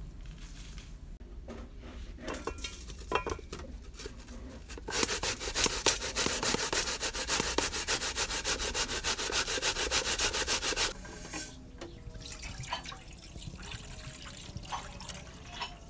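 Coconut flesh grated on a hand-held metal grater: a fast, even rasping of strokes that starts about five seconds in and stops abruptly about six seconds later. Softer scattered clicks and handling sounds come before and after it.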